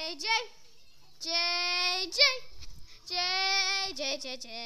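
A young child singing long held vowel notes, each about a second long and ending in a quick swoop of pitch, with short breaks between them.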